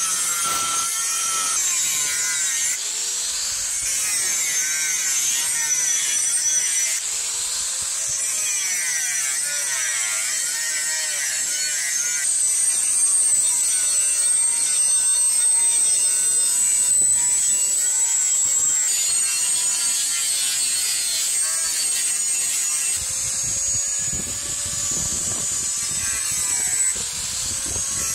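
Electric angle grinder with a thin cut-off disc cutting through rusty disc-plough steel plate. It makes a high, steady whine, and the pitch rises and falls as the disc bites into the cut and eases off.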